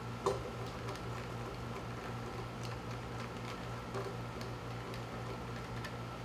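A hand screwdriver tightening screws into an LED quantum board, with a few small clicks and ticks, the sharpest shortly after the start, over a steady low hum.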